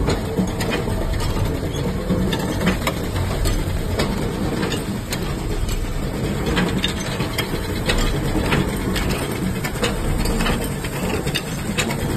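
Bolt thread-rolling and bending machines running: a steady low machine hum with irregular clicks and clanks of metal parts.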